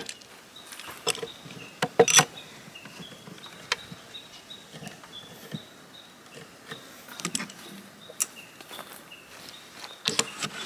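Steel bar clamps being set and tightened on a wooden board: scattered clicks and knocks of metal on wood, the loudest about two seconds in. Faint repeated high chirping in the background.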